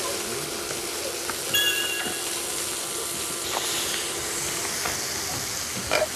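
Onions frying in salmon fat in a frying pan: a steady sizzle, with a few light clicks and a brief high whistle-like tone about a second and a half in.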